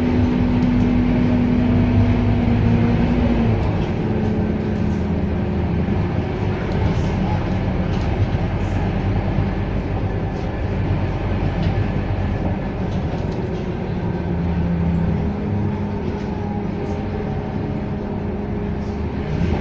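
Scania K230UB bus's five-cylinder diesel engine running while the bus is under way, over a steady rumble. The engine note drops about three and a half seconds in and climbs again near the end.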